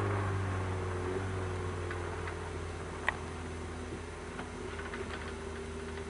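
A rally car's engine fades after going past, its note falling a little and then settling into a distant steady drone. Faint ticks are scattered through it, with one sharp click about three seconds in.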